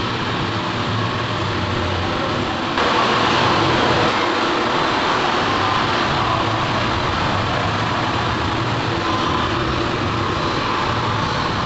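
Steady machinery noise: a continuous hiss over a low hum, getting louder about three seconds in.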